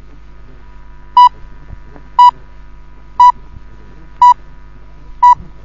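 Radio time signal pips: five short, loud, identical high beeps spaced about a second apart, over a faint steady hum. They are the Moscow radio precise-time signals, counting down to the hour.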